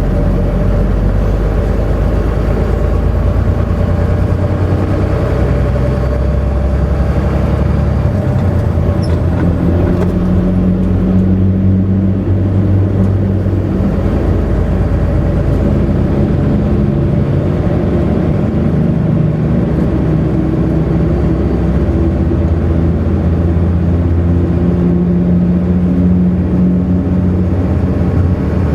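Semi truck's diesel engine running steadily under way, with road and tyre noise, heard from inside the cab.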